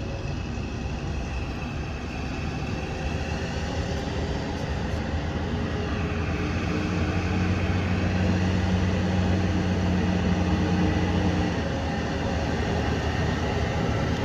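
A vehicle engine drones steadily, its hum swelling for several seconds in the middle and then easing back.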